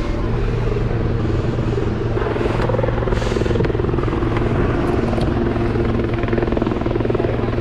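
Quad outboard motors of a center-console boat idling in gear at slow speed: a steady, even engine drone.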